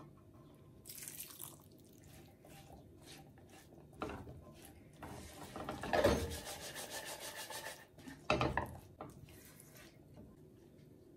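Silicone spatula stirring and scraping black chickpeas, onion and tomato around a non-stick frying pan, in irregular bursts of rubbing. The stirring is densest and loudest from about five to eight seconds in.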